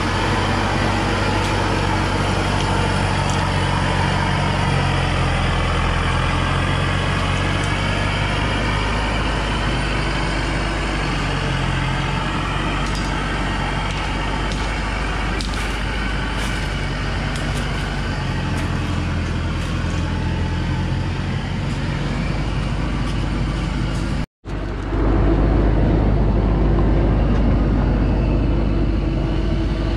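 Diesel engine of a Thaco Forland 4WD truck, fully loaded with acacia logs, running steadily as it crawls along a dirt track, with a few light clicks in the middle. After a brief break about three quarters of the way through, the low engine sound comes back louder.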